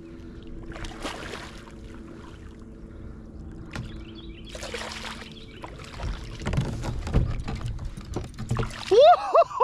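Water splashing and knocks against a plastic kayak hull as a hooked largemouth bass is fought alongside and grabbed over the side, with short splashes early on and heavier knocks and thumps in the last few seconds.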